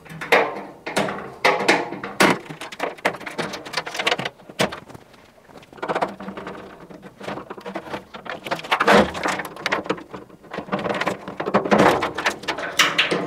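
Irregular clicks, snaps and rustling as a washing machine's wiring loom is unclipped from its plastic cable clips and dragged out of the metal cabinet.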